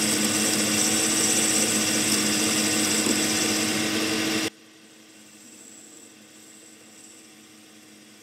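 Metal lathe driven by a motor on a pulse-width modulator, turning at about 467 RPM while an insert-tipped tool cuts a recess into a disc held in a four-jaw chuck: steady cutting noise over a motor whine. A little past the middle the sound drops suddenly to a faint hum.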